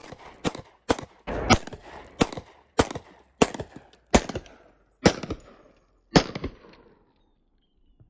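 A string of about ten pistol shots, fired one at a time roughly every half second to second, each with a short echo; the firing stops about six seconds in.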